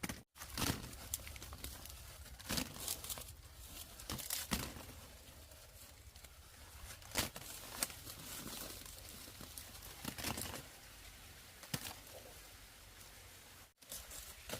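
Dry plant material being handled: irregular rustling, crackling and tearing, with sharp snaps every second or two.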